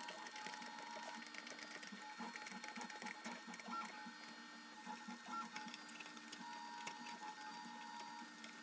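Faint mechanical whirring from a small motorized machine, with steady tones that switch on and off, a few short tone blips and a soft rhythmic pulse.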